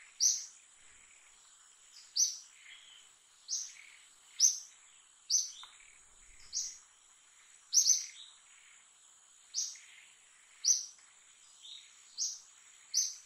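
A bird's short, sharp, high chirp falling in pitch, repeated about once a second, over a steady high-pitched insect drone.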